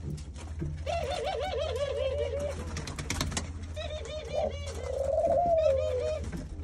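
Ringneck doves cooing, several birds overlapping in rolling, wavering coos, the loudest and longest call coming about two-thirds of the way through. A steady low hum runs underneath, with a few sharp clicks about halfway through.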